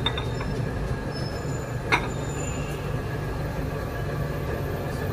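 Steady low rumble of a busy restaurant, with a single sharp clink of a ceramic bowl about two seconds in as bowls are handled at the counter.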